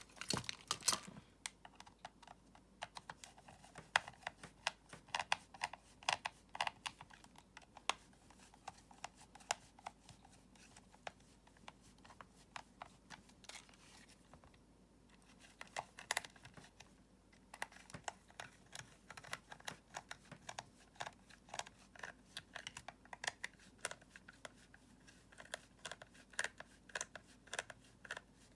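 Irregular light clicks and taps of small hard parts being handled, with brief lulls.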